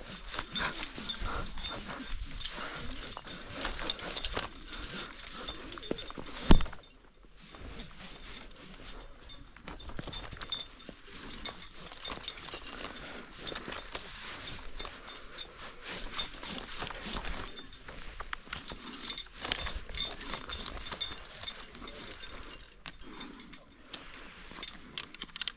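Metal climbing gear, carabiners and hardware on a harness and rope, clinking and rattling irregularly as it is handled, with one sharp loud knock about six and a half seconds in.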